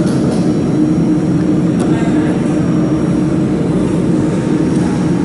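Steady whirring of machine cooling fans with a constant low hum under it, and a faint tick of a hand tool about two seconds in.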